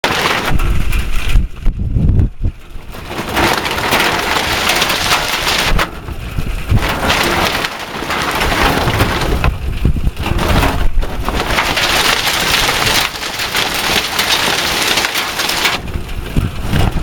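Heavy hail pelting hard surfaces: a loud, dense clatter of impacts that thins out briefly a few times.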